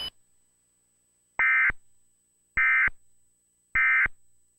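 Emergency Alert System end-of-message code: three short, identical bursts of two-tone digital data (the SAME "NNNN" signal), about a second apart, marking the end of the alert.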